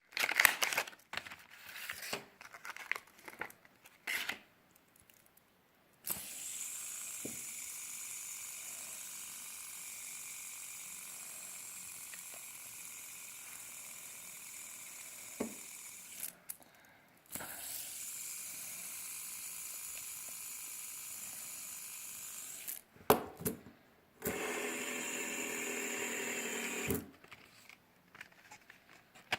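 Handling clicks and rustles from unpacking, then a fidget spinner spinning on its bearing with a steady high whir for about ten seconds. It stops, is spun again for about five seconds, and after a few clicks gives a shorter, louder whir near the end.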